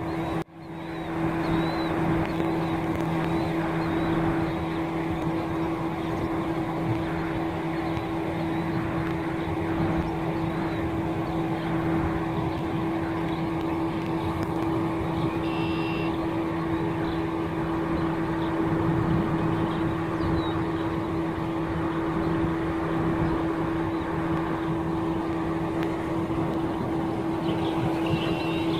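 A steady machine hum, two low steady tones over an even rushing noise, starting about a second in, with a few faint high chirps around the middle and again near the end.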